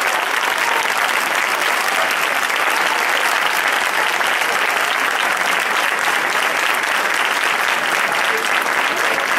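A large crowd applauding steadily, with dense clapping throughout.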